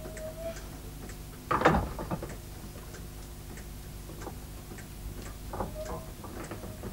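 Irregular mechanical ticking and clicking from the funicular's brake and cable machinery over a low steady hum, with one sharp knock about a second and a half in and a brief squeak near the start and again near the end.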